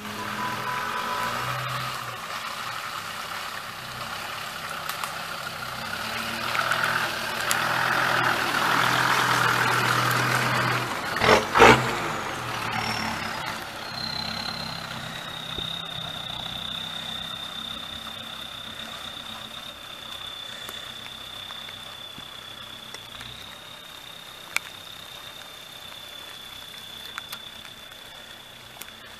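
Land Rover Defender engine running, fading as it pulls away, with two sharp knocks about eleven seconds in. From about fourteen seconds a steady high-pitched whine holds over the engine.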